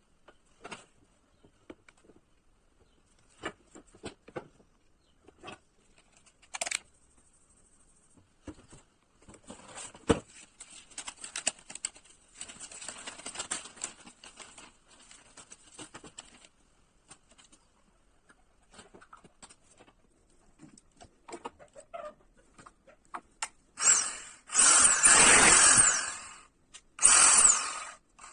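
Bosch GSB 450 impact drill being handled out of its packaging: scattered clicks, knocks and rustling, then the drill's motor run briefly twice near the end, once for about two seconds and once for about one second.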